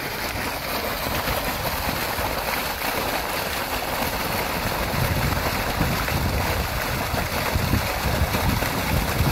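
Water gushing and splashing up from an irrigation pump's discharge outlet into a flooded field channel: a loud, steady rush of water.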